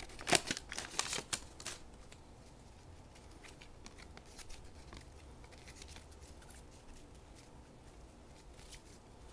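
Foil wrapper of a hockey card pack crinkling in the first two seconds, then faint ticks and rustles of 1990-91 Upper Deck hockey cards being slid apart and fanned through by hand.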